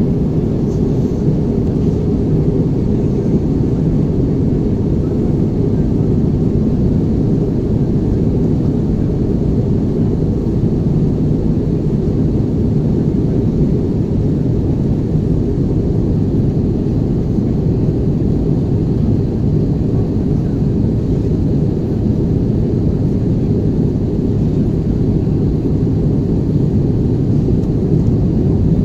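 Steady low roar of engines and airflow inside an Airbus A320's cabin in flight.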